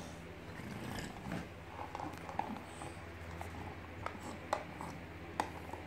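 A French Bulldog mouthing and pushing a small clear plastic box, with scattered sharp clicks and scrapes of plastic, the loudest about halfway through and near the end, over a low steady hum.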